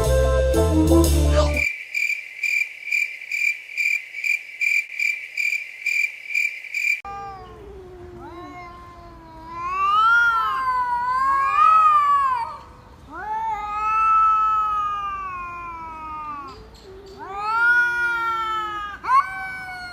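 A cat meowing in several long, drawn-out calls that rise and fall in pitch. Before it comes an electronic beep repeating about twice a second for roughly five seconds.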